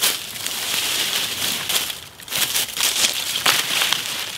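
Dry fallen leaves crunching and rustling under footsteps and as sticks are gathered from the leaf litter, with a few sharper cracks along the way.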